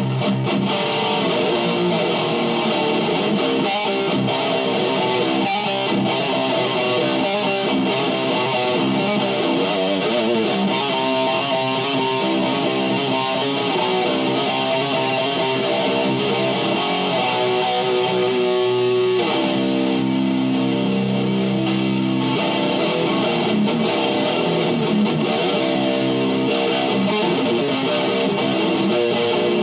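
Black single-cutaway electric guitar playing a medley of fast extreme-metal riffs. About 19 seconds in, the riffing gives way to slower, held chords.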